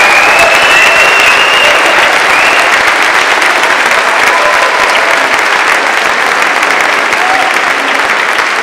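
Loud, steady applause from a chorus and audience, with one long high call from the crowd over it in the first two seconds or so.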